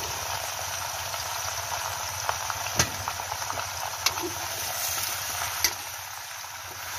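Chicken and duck pieces sizzling in a hot wok while a metal ladle stirs them, with a few sharp clinks of the ladle against the pan.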